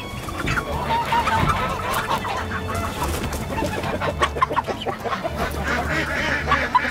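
A flock of chickens clucking, with many short overlapping calls, as the birds come out of their coop.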